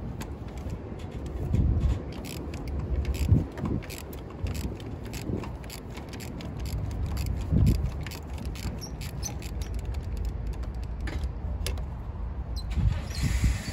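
Irregular clicks and knocks of hand tools and parts being worked in an engine bay, over a low rumble. Near the end a high, squeaky chirping starts, like a little rat.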